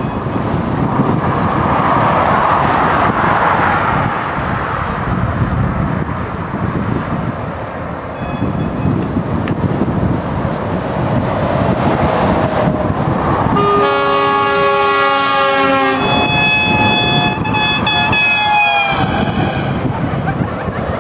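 Convoy of lorries driving past below with steady engine and tyre noise. About 14 seconds in, lorry air horns sound: a chord lasting about two seconds, then straight away a higher chord for about three seconds.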